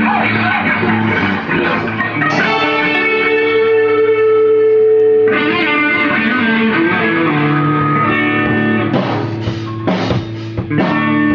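Band rehearsing a song on guitars, chords strummed steadily, with sharper strummed strokes from about nine seconds in.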